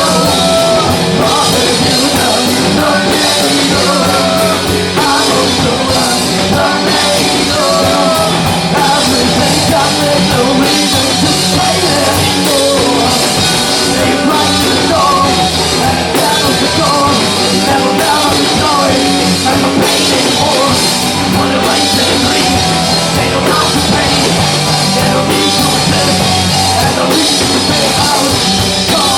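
Rock band playing loudly live, a drum kit driving the beat under a moving melody line.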